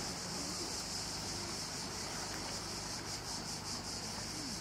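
Cicadas buzzing in a steady high chorus that pulses faintly, over a faint low hum.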